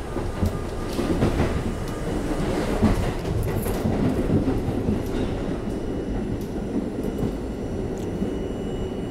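An R32 subway car running on the rails, heard from inside the car: a steady rumble of wheels on track with irregular clacks over the rail joints, busiest between about one and five seconds in.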